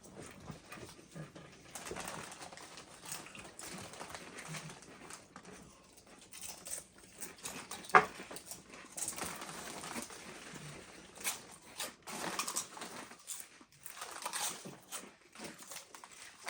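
People crunching and chewing Doritos tortilla chips: irregular crisp crackles, with one sharper click about eight seconds in.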